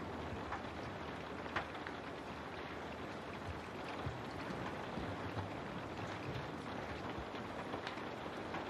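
Steady rain, with scattered louder drops tapping now and then.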